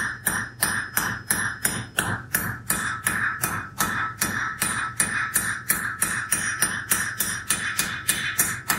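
Hand hammer striking a red-hot iron bar on an anvil in a steady rhythm of about three blows a second, drawing the bar out into a short taper. A bright ring carries on between the blows.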